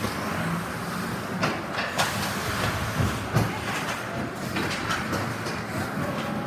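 Ice hockey play on a rink: skate blades scraping the ice with a steady hiss, and several sharp clacks of sticks and puck, about a second and a half in and again around two, three and three and a half seconds.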